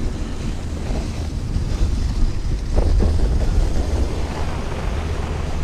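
Wind buffeting the microphone and the steady rush of a sled sliding fast over snow: a continuous rumbling hiss.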